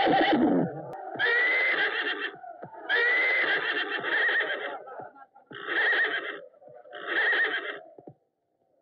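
Horse neighing again and again: five shrill whinnies in about eight seconds, the last two shorter, as it rears and bucks.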